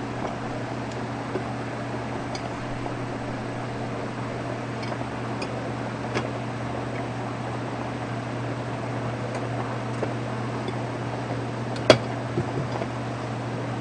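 Dumplings being set into a stainless steel steamer pot, a few light clicks and taps over a steady low hum, with one sharp metallic clink about twelve seconds in.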